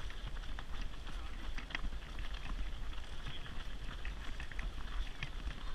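Wind buffeting the microphone of a camera mounted on a running buggy, over a low rumble from the buggy rolling on tarmac, with an irregular patter of runners' footsteps and light clicks.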